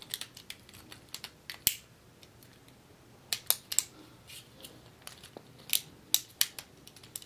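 Hard plastic and metal Beyblade parts clicking and tapping as they are handled and fitted together, in scattered short clicks with a few louder snaps.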